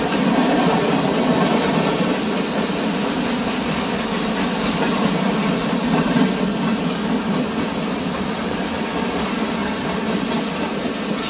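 Freight train rolling steadily past: a continuous rumble of steel wheels on rail, with a faint clickety-clack.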